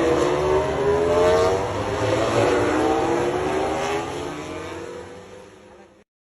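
MotoGP racing motorcycle engines at high revs, their pitch dipping and climbing again as the bikes brake and accelerate, fading away over the last two seconds.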